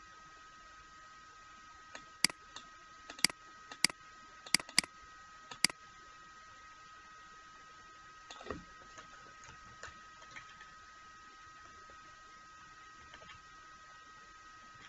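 About six sharp clicks at a computer, in quick succession between two and six seconds in, with a few fainter clicks later, over a faint steady high whine.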